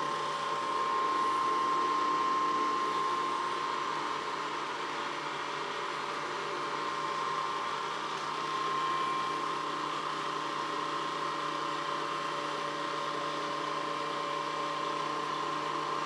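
SwitchBot K10+ Pro mini robot vacuum running: a steady motor hum with a constant high whine.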